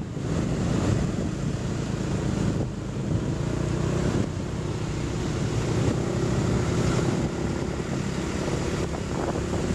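Wind buffeting the microphone while riding along a road on a motorcycle, with the motorcycle's engine running underneath. A faint steady engine tone comes through in the second half.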